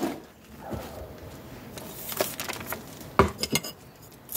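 A few light clicks and knocks of hand tools being moved about on a workbench, the loudest about three seconds in.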